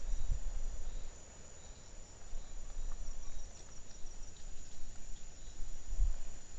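Steady high-pitched insect trilling, cricket-like, with a quick run of chirps a few seconds in, over an uneven low rumble.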